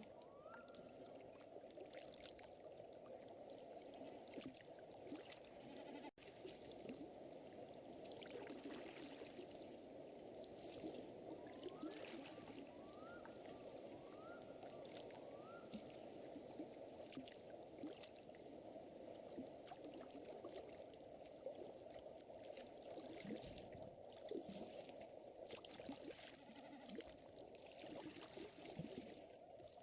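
Fire crackling with scattered sharp pops over a steady water-like murmur, with a few faint, short rising chirps from a small animal partway through. The sound briefly drops out about six seconds in.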